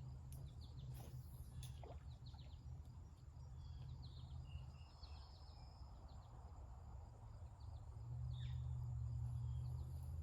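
Outdoor ambience: faint scattered bird chirps over a steady low rumble, with a couple of brief clicks about a second in.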